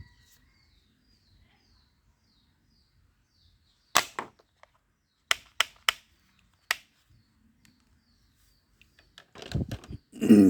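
Toy gun firing: one sharp crack, then three quick cracks about a second later and one more after that, with a longer, lower burst of noise near the end.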